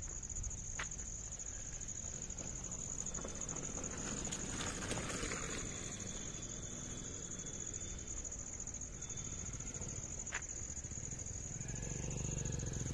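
Insects trilling in one continuous, steady high tone, with a couple of faint clicks. A low rumble starts to rise near the end.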